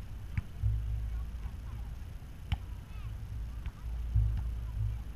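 A ball being struck by feet, knees or heads in a keepie-uppie game, heard as a few sharp, spaced-out thuds. Gusty wind rumbles on the action camera's microphone underneath.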